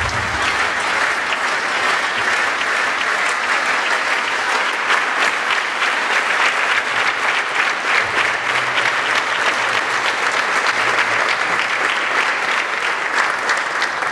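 A large audience clapping steadily and loudly, a dense, even applause.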